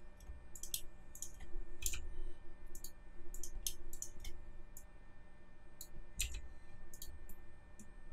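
Computer mouse buttons and keyboard keys clicking irregularly, about a dozen light, sharp clicks, over a faint steady hum.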